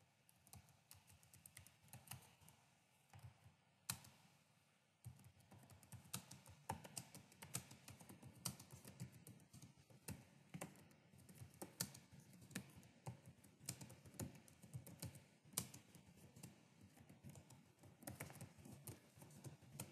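Faint typing on a computer keyboard: a run of irregular keystrokes, scattered for the first few seconds and then quick and steady.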